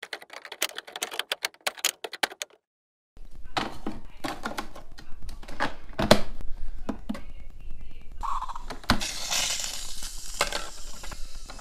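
Tassimo pod coffee machine being loaded: clicks and knocks of the lid and T-disc being handled, then the machine's steady hiss as it brews into a mug, over a low hum. It is preceded by a quick run of sharp clicks and a moment of silence.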